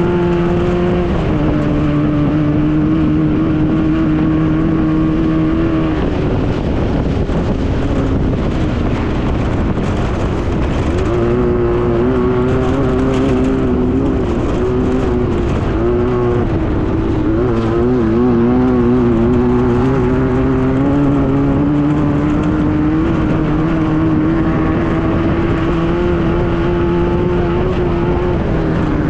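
Class 9 desert race buggy's air-cooled VW engine running hard at speed over a constant noisy rush. Its pitch drops about a second in and again around six seconds, climbs near eleven seconds, wavers for several seconds after that, then holds steady.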